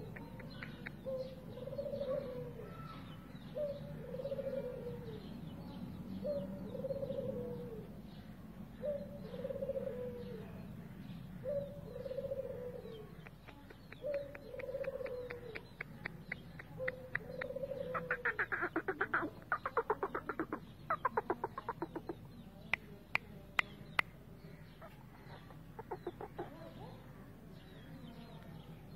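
Bird calls: a low, slightly falling call repeated about every two and a half seconds through the first half, then a fast rattling run of notes or clicks for several seconds past the middle, with a few sharp ticks after.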